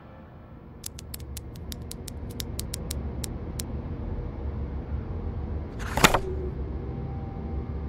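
Typing on a laptop keyboard: an irregular run of light key clicks, then a single brief, louder noise about six seconds in, over a low steady room hum.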